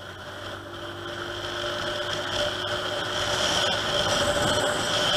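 Rusi Gala 125 scooter engine running while riding, with wind on a helmet-mounted camera. It is a steady hum with a high whine through it, growing steadily louder over the seconds.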